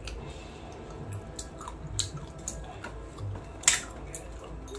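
Eating by hand: wet chewing and mouth clicks, with fingers working rice and fish on a steel plate. Short scattered clicks, with one sharper click about three and a half seconds in.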